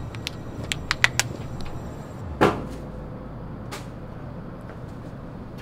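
A door being worked: a few sharp clicks of the latch and handle, then a loud thud as it shuts about two and a half seconds in, and a lighter knock a second later, over a steady low background hum.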